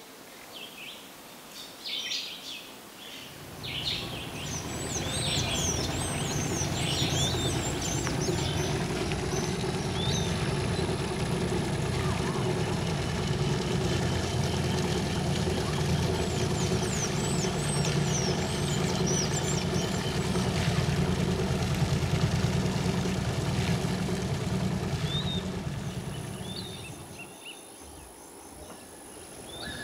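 A riverboat's engine chugging steadily as the boat passes, coming in a few seconds in and fading out near the end. Birds chirp over it, mostly in the first part.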